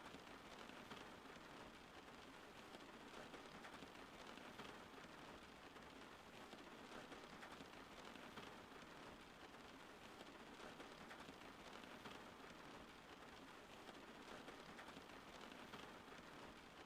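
Faint, steady rain falling, an even patter of drops with no thunder or other distinct events.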